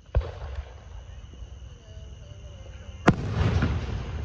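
Fireworks exploding: a sharp bang just after the start and a smaller one half a second later, then a louder, sharper bang about three seconds in followed by about a second of crackling.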